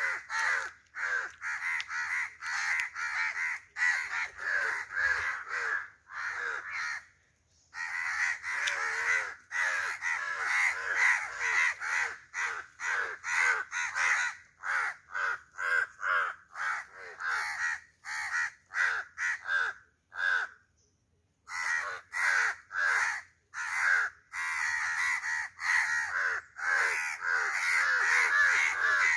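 A crow fledgling, grounded after falling from its tree, calling in a fast, insistent series of short caws, several a second, with brief pauses about a third of the way through and again about two thirds through.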